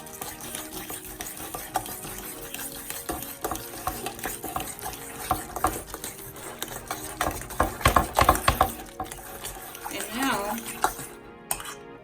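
A utensil stirring and mashing a thick, sticky mixture of flaxseed gel and mashed sweet potato in a bowl: continuous wet scraping and clicking against the bowl, loudest about eight seconds in.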